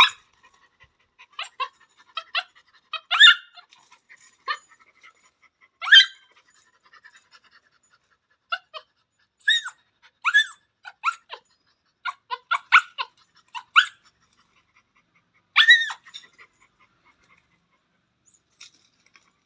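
Puppy crying: many short, high-pitched whimpers and yelps, coming singly and in irregular clusters with brief pauses between them.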